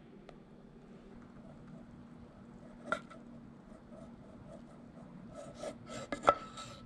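A spoon scraping thick whipped dalgona coffee out of a stainless steel milk pitcher onto a glass of milk, quiet and rubbing, with a sharp tap about three seconds in and light clicks of the spoon near the end.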